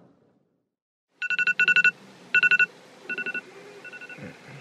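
Electronic wake-up alarm beeping in quick groups of about four. It starts about a second in, after a moment of silence, and turns fainter for a moment near the middle.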